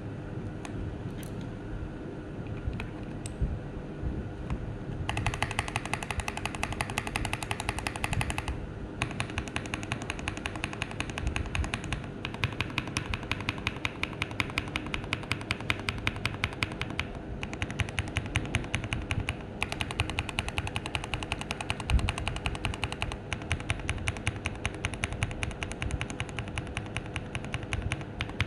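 Fast typing on mechanical keyboard switches being sound-tested, a dense run of clacking keystrokes broken by short pauses. It starts about five seconds in, after a few scattered clicks, over a steady low hum.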